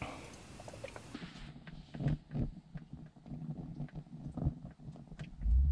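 Wind gusting across the camera microphone, a low rumble that surges and drops in uneven bursts, with a few faint clicks.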